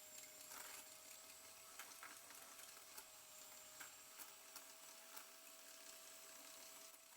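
Electric hand mixer running faintly and steadily, beating oil, water, sugar and cocoa together, with scattered light clicks.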